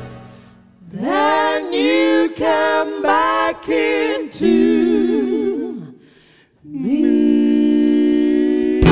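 Three women's voices singing a cappella in close harmony: several short phrases, then a held note that wavers, a brief pause about six seconds in, and a long steady held chord to close. The band's last chord fades away at the start.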